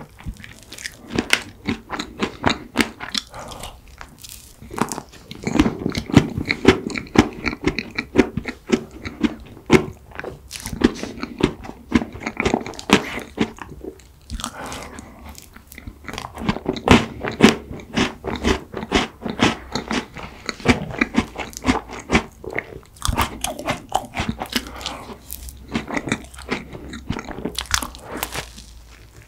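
Close-miked eating: biting and chewing of mint chocolate ice cream cake and a cookie-topped ice-cream waffle, with many quick, crisp crunches and chewing sounds.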